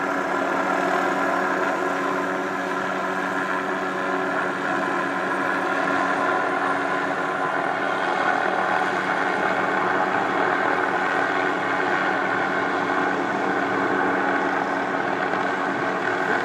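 A steady engine hum that holds an even pitch throughout, with no change in speed.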